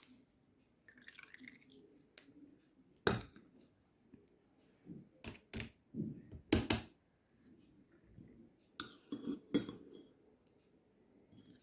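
A metal spoon clinking and knocking against a glass and other kitchenware, as sweet syrup is spooned out: scattered sharp clinks, the loudest about three seconds in, a close cluster around six and a half seconds, and a run near nine seconds.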